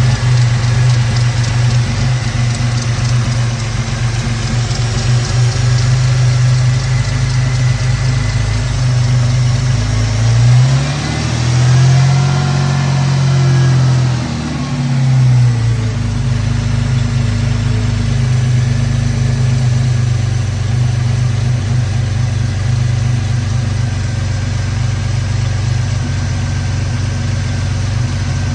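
2002 Ford Mustang's 3.8-litre V6 idling, revved once about halfway through and dropping back to idle. The idle is rough despite a new PCV valve and breather hose, which the owner thinks may point to a vacuum leak.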